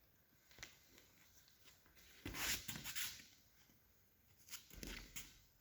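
Aikido practitioners moving on the mat: cloth rustling and brushing in two bursts, a longer one about two seconds in and a shorter one near the end.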